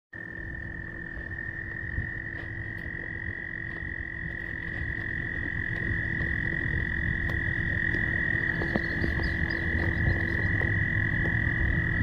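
Frogs calling in their spring courting chorus: a continuous high-pitched call that holds steady throughout and grows gradually louder, over a low rumble.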